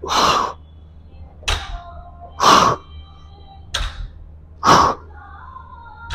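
Barbell deadlift reps. Each rep has a short thud as the rubber-coated plates touch the floor, then a sharp, forceful exhale through the mouth on the pull, about every two seconds. Three exhales and two thuds, and the exhales are the loudest.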